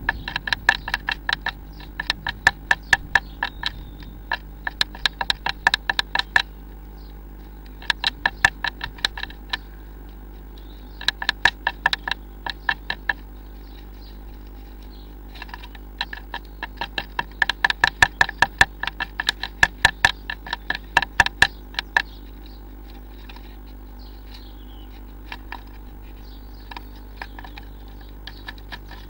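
Blue tit pecking and tapping at the wood inside a nest box: bursts of sharp, rapid taps that ring in the box, mostly stopping after about twenty seconds. A low steady hum runs underneath.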